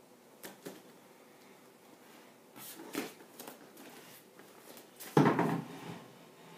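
Light knocks and bumps from a wooden chair and bare feet on gym mats, then, about five seconds in, a loud wooden thud and brief scrape as the chair is set down on the wooden floor.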